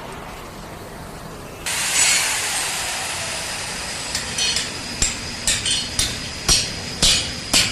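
Metalwork on a concrete mixer: a steady hiss starts suddenly about one and a half seconds in and keeps going. In the second half about ten sharp metallic knocks come at uneven intervals.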